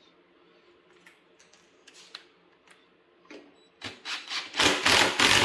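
Ratchet wrench clicking in quick repeated strokes as a nut is run down and tightened. After a few light clicks, the loud strokes start about four seconds in, two or three a second.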